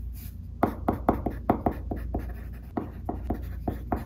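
Graphite pencil writing on paper: quick, irregular scratching strokes, a few a second.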